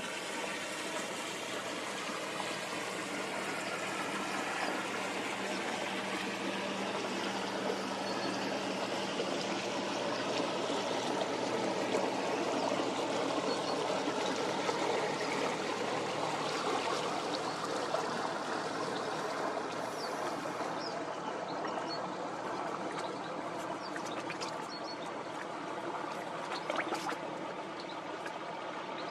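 River water rushing and lapping, swelling towards the middle, likely the wash of a passing cruiser, with a low steady engine hum in the first third.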